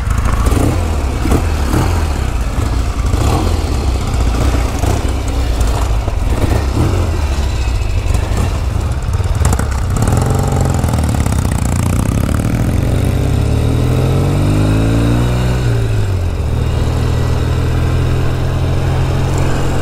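Motorcycle engines idling unevenly, then a motorcycle pulling away: its engine pitch rises for about three seconds, drops at a gear change, and settles into steady running at road speed.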